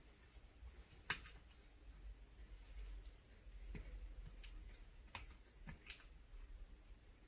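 Faint, scattered clicks and scrapes of a thin cleaning tool and patch working into the small recesses of a Springfield XD9 pistol's frame, with a sharper click about a second in.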